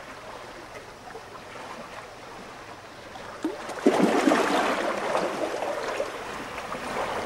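Shallow seawater lapping and trickling around stones at the shoreline, getting louder and more splashy about four seconds in.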